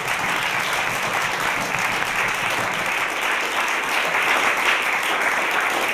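Live audience applauding steadily, a dense patter of many hands clapping at once.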